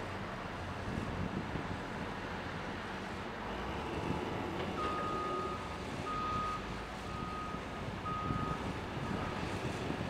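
Caterpillar 325D excavator's diesel engine running steadily, with a backup alarm beeping about five times in the second half.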